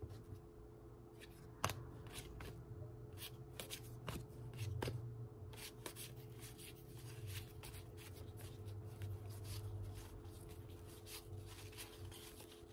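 Baseball trading cards being flipped through by hand: a run of soft flicks and slides, several a second, from about a second and a half in. A faint steady hum runs underneath.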